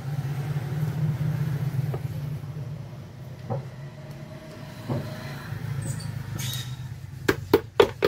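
A steady low rumble with a few handling knocks on the mixer grinder's plastic housing as its coupler is worked by hand. Near the end comes a quick run of sharp clicks, about four a second.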